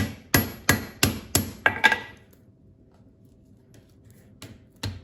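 Cross-peen hammer striking a hot tong blank on an anvil, about three blows a second for two seconds with a bright ring after each, while offsetting the boss from the reins; a pause follows, then another blow near the end.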